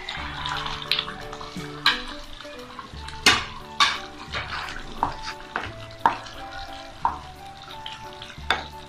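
A wooden spatula stirring fried cabbage koftas through simmering tomato gravy in a pan, scraping and knocking sharply against the pan several times. The loudest two knocks come about three and a half seconds in.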